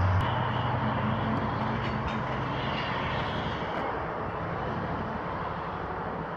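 Colas Rail Freight Class 70 diesel locomotive's engine running as it moves off under power. It is a deep steady drone that changes note slightly just after the start and then fades gradually.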